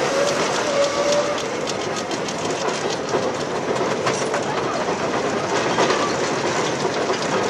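Steam traction engine driving along, its exhaust puffing in a regular beat over the running noise of the engine.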